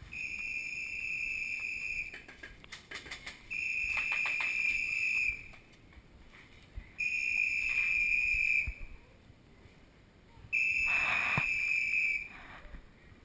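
A whistle blown in four long, steady, high-pitched blasts, each nearly two seconds, evenly spaced. There are a few sharp clicks between the first two blasts.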